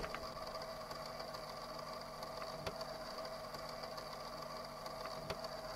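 A steady mechanical whirring hum with a few faint ticks, opening with a sharp click.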